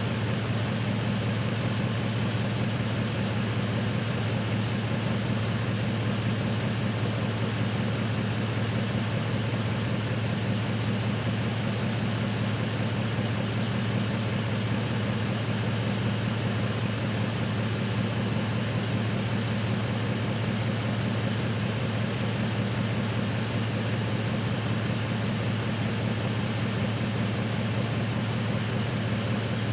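A truck engine running at a steady idle: an even, low drone that holds the same speed throughout.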